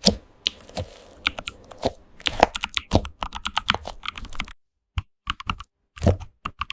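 Computer keyboard being typed on in a quick, dense run of key clicks. About four and a half seconds in it breaks off to dead silence, and after that only scattered single key clicks come.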